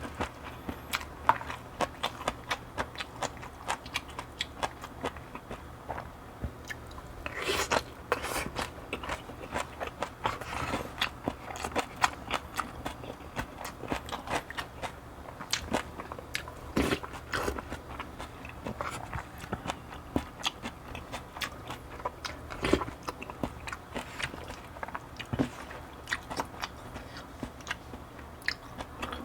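A person chewing and eating close to the microphone: a dense run of sharp mouth clicks, several a second, with a few louder crunches.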